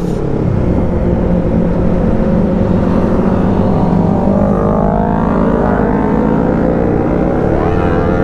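Yamaha R25 sport bike's parallel-twin engine running at speed, heard from the rider's helmet, with road and wind noise; the engine note rises twice as the bike accelerates, about halfway through and again near the end.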